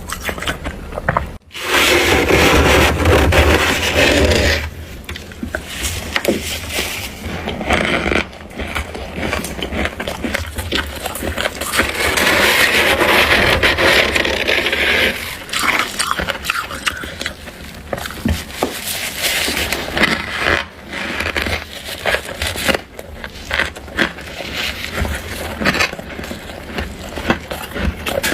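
A spoon scraping through thick, crunchy freezer frost, with many small crackling crunches. The scraping is densest about two seconds in and again around twelve to fifteen seconds in.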